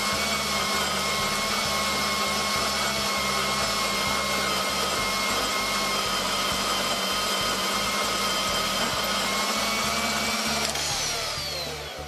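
Femi portable metal-cutting bandsaw running with a steady motor whine. Near the end it is switched off, and the whine falls in pitch as the blade winds down.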